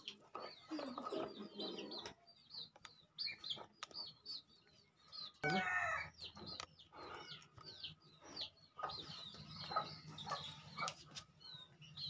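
Chickens peeping and clucking in quick, repeated high chirps, with one louder, longer call about five and a half seconds in. Occasional sharp clicks come from a bonti blade cutting through a ripe papaya.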